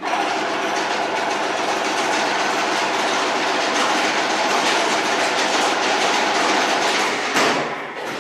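Fully automatic PVC-coated-wire chain link fence machine running, a steady dense clatter of its weaving mechanism. It drops off briefly near the end.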